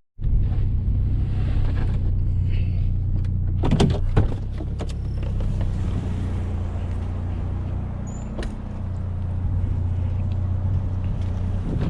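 GMC Sonoma pickup truck driving, its engine and road noise a steady low drone, with a few sharp knocks about four seconds in.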